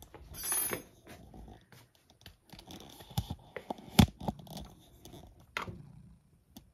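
Scattered rustling and small clicks, with a brief scuffle just after the start and one sharp click about four seconds in.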